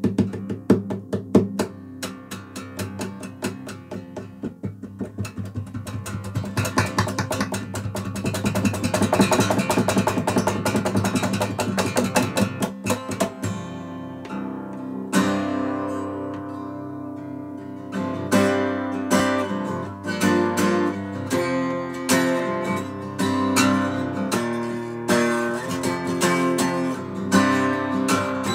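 Acoustic guitar played solo with no singing: quick, rhythmic strumming, changing about halfway through to slower strummed chords with notes left to ring.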